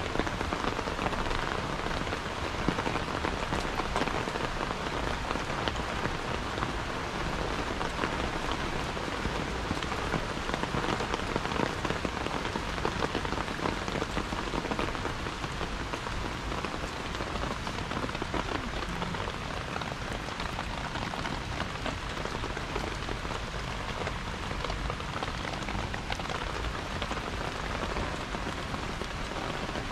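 Steady rain falling on a garden, a dense patter of drops on the plants and grass.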